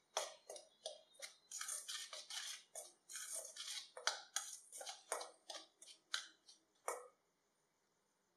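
Metal spoon stirring a dry rice-flour mix in a stainless steel bowl: quick repeated scraping strokes of spoon on steel and flour, which stop about seven seconds in.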